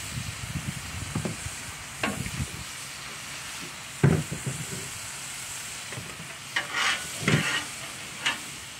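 Bacon, burgers and hot dogs sizzling on a Blackstone flat-top griddle. About four seconds in, the bacon press knocks down onto the griddle; near the end, a metal spatula scrapes and taps on the cooking surface.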